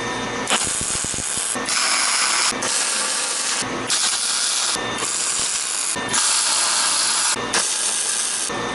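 MIG welder tacking steel angle-iron braces: a series of about seven arc crackles, each about a second long, with short breaks between tacks.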